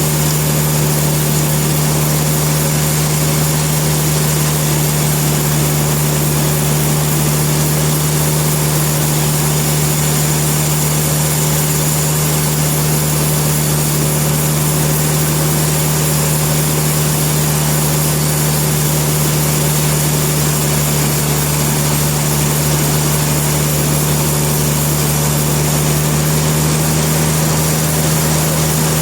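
Sawmill machinery running at a constant speed: a loud, steady hum that does not change.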